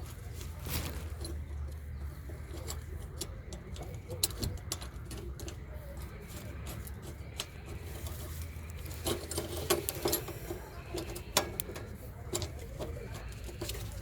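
Scattered sharp clicks and light clinks, several louder ones about ten seconds in, over a low steady hum.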